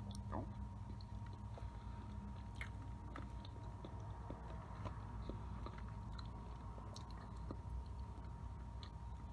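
Faint chewing and small mouth clicks of someone eating a microwaved Oreo cake, over a steady background hum with a thin high tone.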